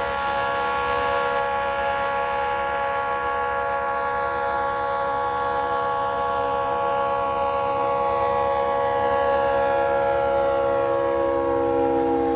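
Florida East Coast Railway diesel locomotive's air horn sounding one long, held chord as the freight train approaches, over the low rumble of the train. Near the end the chord drops slightly in pitch as the lead locomotive passes.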